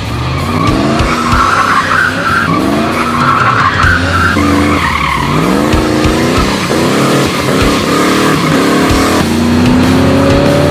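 Pontiac Firebird Formula's 5.0 V8, breathing through an Edelbrock carburettor and Edelbrock exhaust, revving up and dropping back again and again as the car is driven hard. Tyres squeal during the first few seconds.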